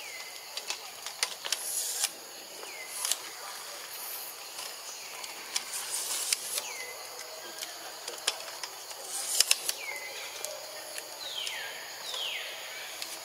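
Forest wildlife ambience: repeated short, sharp calls that sweep down in pitch, and two longer falling calls near the end, over a steady high insect drone.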